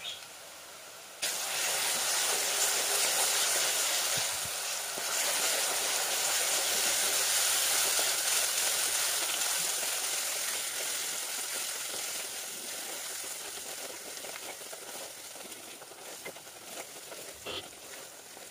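Ginger-garlic paste dropped into hot coconut oil and onions in a clay pot: a sudden sizzle about a second in that slowly dies down as the paste fries.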